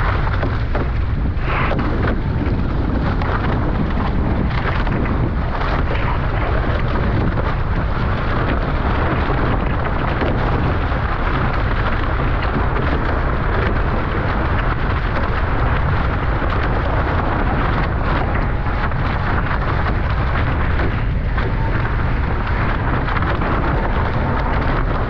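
Wind buffeting the microphone in a steady, heavy rumble, with water rushing and splashing past the hulls of a Nacra 15 sailing catamaran under way.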